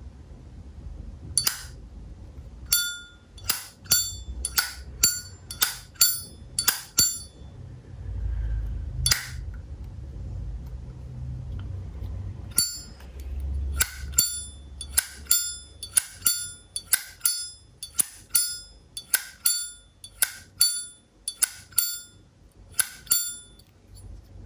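Zippo lighter lid being flicked open and snapped shut over and over, each a sharp metallic clack with a short ringing note, in two quick runs with a pause of a few seconds between them.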